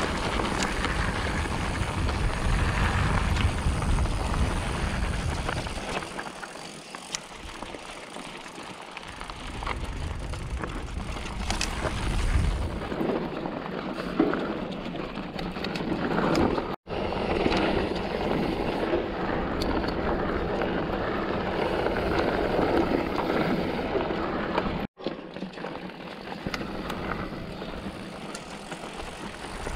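2021 Polygon Siskiu N7 full-suspension mountain bike ridden along a dirt singletrack: tyres rolling over dirt and rocks, with the chain and frame rattling over bumps in many sharp clicks. Wind buffets the action-camera microphone at times.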